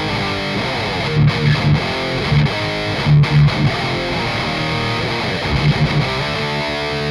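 Heavily distorted electric guitar played through a free high-gain amp-sim plugin, playing a metal riff: sustained chords broken by clusters of tight palm-muted low chugs.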